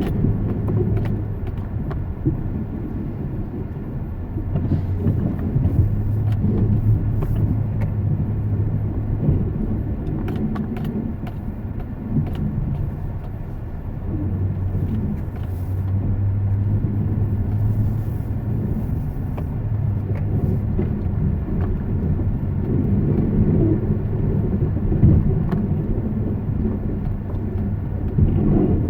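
A car running, with a steady low rumble of engine and road noise and scattered small clicks and rattles.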